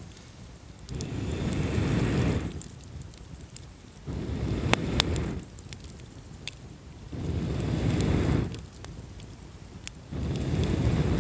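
Wood campfire of crossed logs burning, with a few sharp crackles and pops near the middle. Low rushing swells rise and fade about every three seconds.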